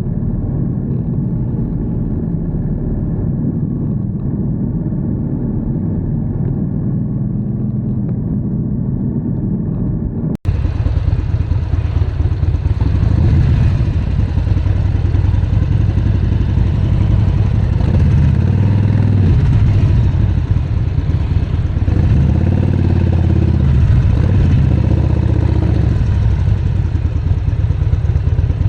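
Harley-Davidson Sportster 48's air-cooled V-twin running through a Vance & Hines exhaust while riding. It is muffled at first, then about ten seconds in it turns abruptly fuller and louder, with the engine note rising and falling several times later on.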